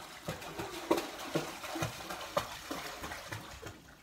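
Water splashing in a swimming pool as a child jumps in and the children move about in the water: a run of irregular short splashes and slaps, fading near the end.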